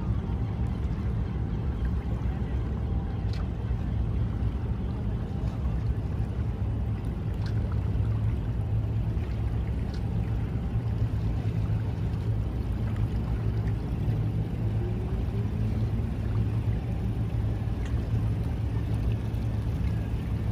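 Steady low rumble of a large vessel's engines running at slow manoeuvring speed, with a few faint clicks.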